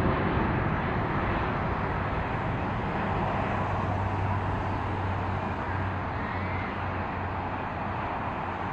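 Jet engines of a departing twin-engine widebody airliner, a Boeing 777, climbing away: a steady roar that slowly fades as the aircraft recedes.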